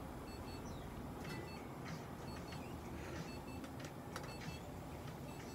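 Short electronic beeps from clinic equipment repeating about once a second over a steady background hiss, with a few light handling clicks.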